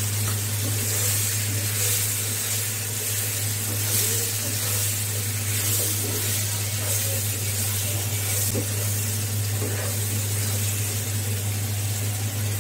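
Raw green mango slices frying in hot mustard oil in a pan, giving a steady sizzling hiss, with a low steady hum underneath.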